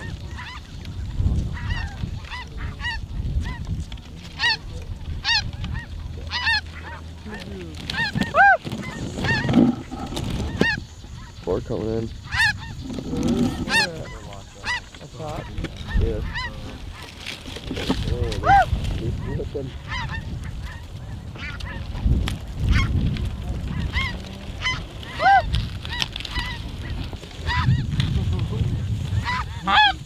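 A flock of snow geese calling, with many short calls overlapping and coming thick and fast throughout, over a low steady rumble.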